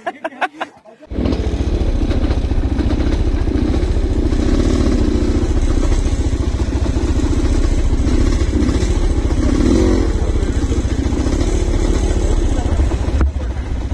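Motorcycle engine running steadily, cutting in abruptly about a second in.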